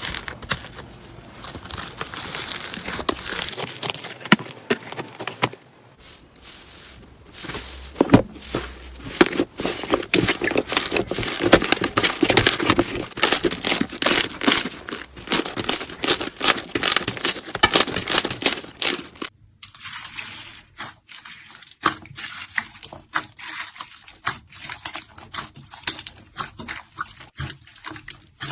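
Hands squeezing, pressing and stretching slime, with dense crackling and popping clicks. The sound changes abruptly about 6 seconds and about 19 seconds in, as one slime is swapped for another.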